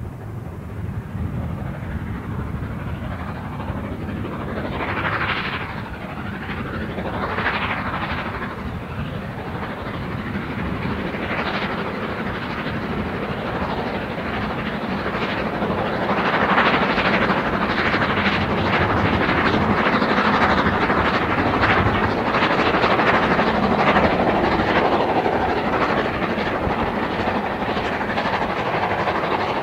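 LMS Jubilee 4-6-0 No. 45690 'Leander' steam locomotive working a train of coaches, its exhaust growing louder as it approaches and running steadily loud from about halfway as it passes, with the noise of the coaches' wheels on the track.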